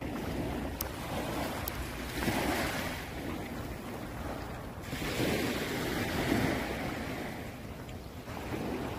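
Small waves washing on a sandy shore, with wind rumbling over the microphone in gusts.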